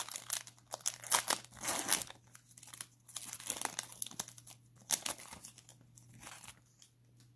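Plastic cello-pack wrapper of a 2020 Mosaic NFL trading-card pack being torn open and crinkled by gloved hands: irregular crackles and rips, densest in the first couple of seconds and dying away near the end.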